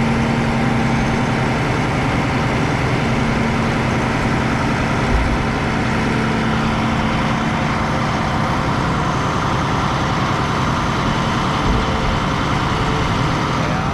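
A heavy diesel engine, a dump truck's or a farm tractor's, running steadily at an even speed.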